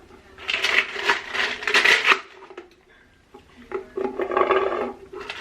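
Objects being handled: rubbing and rustling noises in two stretches, over a steady low hum.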